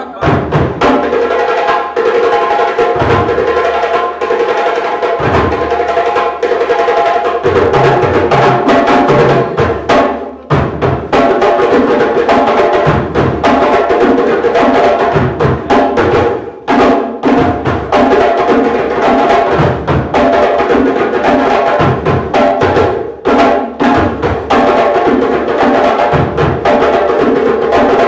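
Djembe ensemble: several goblet-shaped hand drums played together in a fast, unbroken rhythm, with repeated low thuds under sharp, quick strokes.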